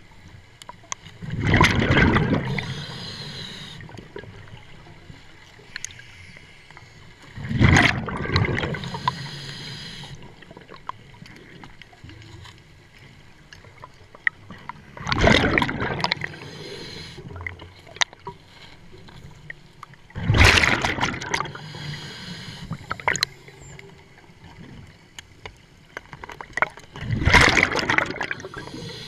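Scuba diver breathing underwater through a regulator: five bursts of exhaled bubbles, about one every six to seven seconds, with quieter hiss between breaths.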